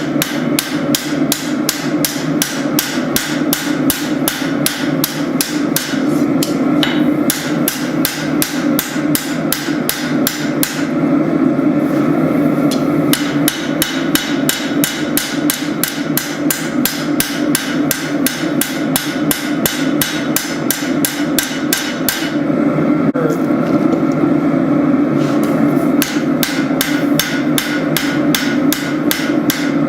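Hand hammer striking hot spring steel on an anvil while a blade is forged out: a steady run of quick, even blows, about three a second, stopping twice for a couple of seconds, over a constant low rushing noise.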